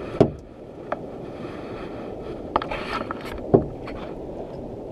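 Several sharp knocks and clunks from handling on the deck of a small fishing boat, the loudest about three and a half seconds in, over a low steady rumble.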